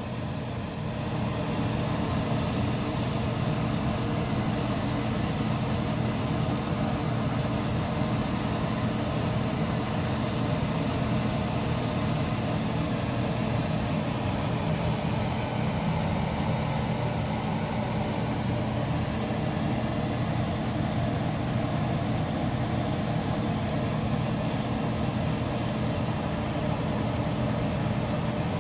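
Steady low hum and rushing noise from a stovetop while eggs and sliced wieners cook in a cast iron skillet over a gas burner, rising about a second in and then holding even.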